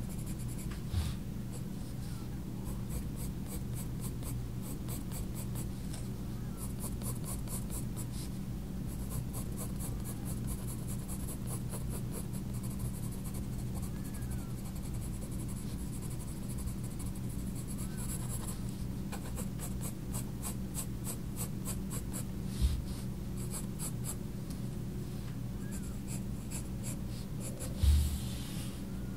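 Faber-Castell Polychromos coloured pencil scratching across sketchbook paper in rapid, short shading strokes. A steady low hum lies beneath, and there are two soft thumps in the second half.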